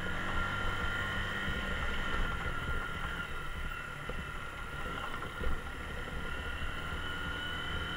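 Mondial Drift 125 motorcycle riding slowly on a rough dirt road: low engine hum mixed with wind rumble on the camera microphone, with a single bump about five and a half seconds in.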